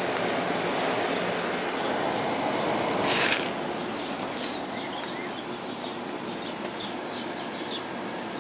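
2001 White-Westinghouse (WCI) 5,000 BTU window air conditioner running on high: a steady rush of fan air through the coil over its quiet LG compressor, with wind on the microphone. A short loud hiss about three seconds in.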